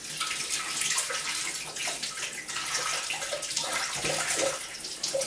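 Kitchen tap running steadily into a sink while hands are washed under it.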